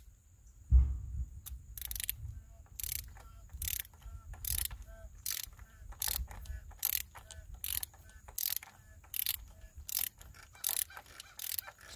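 Click-type torque wrench's ratchet head clicking in repeated back-and-forth strokes, about two to three clicks a second, as it runs the oil filter housing cap down its threads on a 2.7L turbo engine. The cap is not yet snug, so the wrench has not reached its torque setting. A single knock sounds about a second in.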